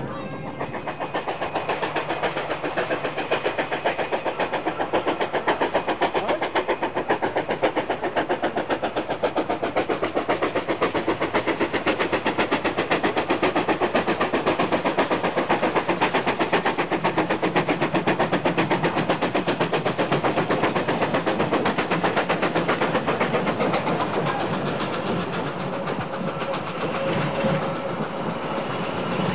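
Steam locomotive working hard, its exhaust beating in a fast, even rhythm.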